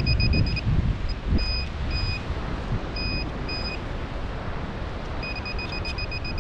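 Handheld metal-detecting pinpointer beeping in the sand: a fast run of high beeps at the start, a few single beeps through the middle, and another fast run near the end, as it sits on a small buried metal target. Low wind noise on the microphone and surf run underneath.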